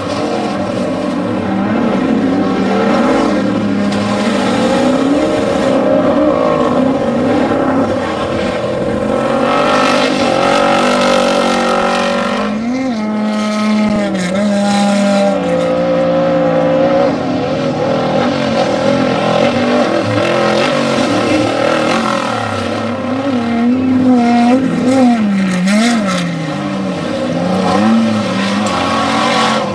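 Engines of off-road desert race vehicles running hard, their pitch rising and falling over and over as the throttle opens and closes.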